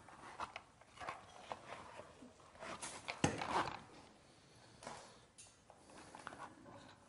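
Hands handling loose wires and a small wooden wiring board: light rustling and scattered irregular taps, with one sharper click a little over three seconds in.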